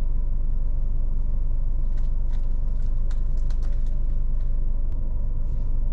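Steady low rumble of a vehicle on the move, with a scatter of light clicks about two to five seconds in.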